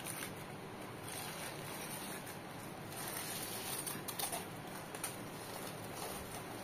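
Aluminium foil rustling and crinkling faintly in short bursts as it is peeled away from the sides of a cheesecake.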